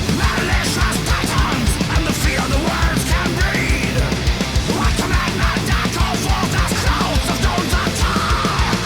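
Loud heavy metal music with a fast, driving drum beat and a vocal line over it.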